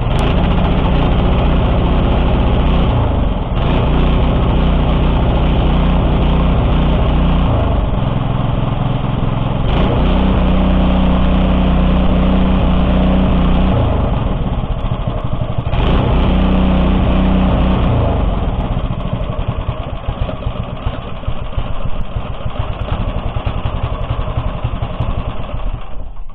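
Lifan single-cylinder petrol engine on an Oka walk-behind tractor running, its speed stepping up and down every few seconds and turning ragged and uneven in the last third. It is running rough, which the owner puts down to the spark plug.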